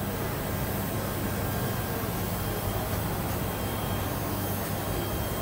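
CNC ball diamond-cutting machine running: a steady motor hum under an even hiss, with no separate cutting strikes standing out.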